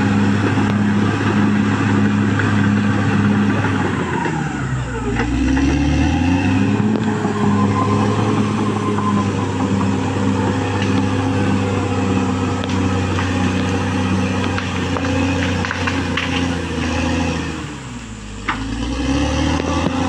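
Caterpillar D6R XL bulldozer's diesel engine running hard, its pitch sagging and climbing back up twice, about a quarter of the way in and again near the end. A single sharp knock comes near the end.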